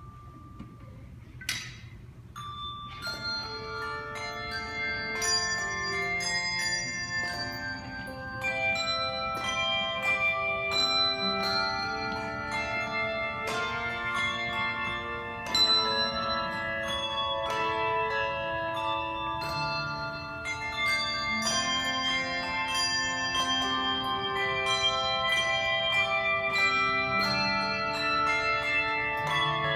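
Handbell choir playing: after a short lull and a single sharp knock, many handbells begin ringing together about three seconds in, sounding chords and a melody with long ringing notes that build in loudness.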